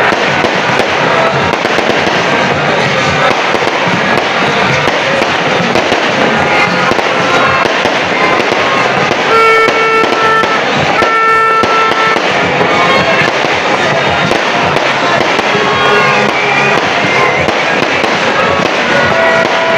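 Fireworks barrage: aerial shells and cakes bursting overhead in dense, continuous crackling and popping, with no pause. Two short held tones sound about halfway through.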